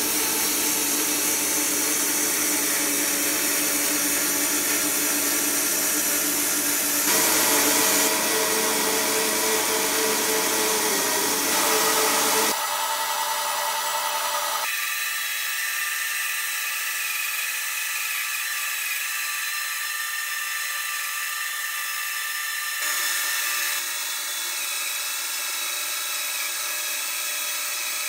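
Band sawmill running, its blade cutting through a eucalyptus log with a steady high hiss and whine. The sound changes abruptly several times.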